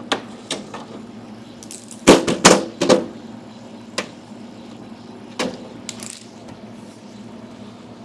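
Irregular knocks and clatters as the back of a thermoelectric wine fridge is handled, loudest in a quick cluster of three or four about two to three seconds in, over a faint steady hum.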